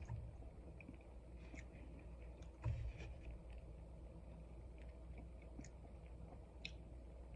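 Faint close-miked chewing of a waffle sandwich with ham, egg and cheese: scattered small mouth clicks over a low steady hum, with one louder knock about two and a half seconds in.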